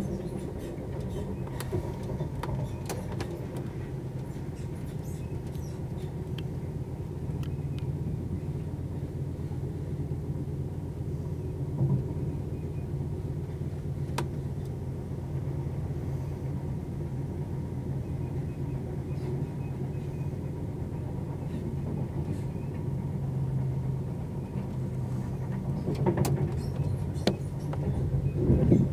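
Sleeper train running at speed, heard from inside the coach: a steady low rumble of wheels on the track with a few sharp clicks, a little louder near the end.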